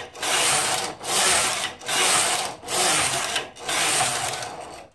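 Carriage of a Silver Reed domestic knitting machine pushed back and forth across the needle bed, knitting rows: a rough, rasping run with each pass, about five passes a little under a second each, with a brief lull at each turn.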